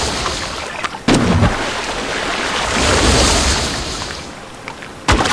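Mobula rays leaping and crashing back onto the sea surface: two sudden loud splashes, one about a second in and one near the end, over the swelling and fading wash of the sea.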